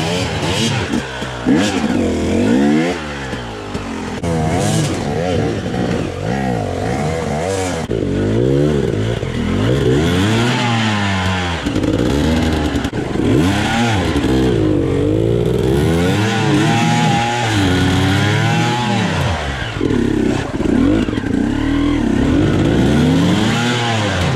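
KTM enduro motorcycle engine revved up and down over and over, its pitch rising and falling every second or two as the bike is worked up a steep, wet, rocky streambed.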